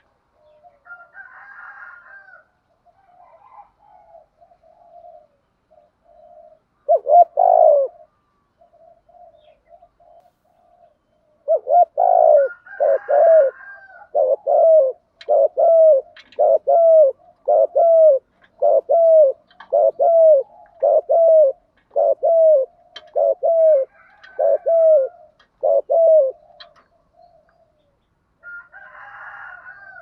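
Spotted dove cooing: one loud coo about seven seconds in, then a long run of short, evenly spaced coos, a little more than one a second, ending about four seconds before the end, with soft low cooing between. This fast run is the 'thúc gù' cooing of a decoy dove, used to stir wild doves into calling.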